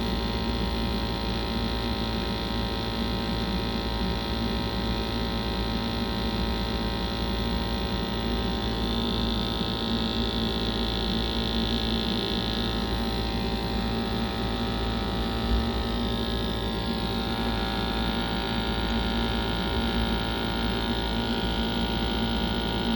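Glow-worm Flexicom gas boiler running with its burner firing and fan turning: a steady hum made of many held tones. The gas valve is being adjusted to set combustion, in a boiler that had a humming-noise complaint.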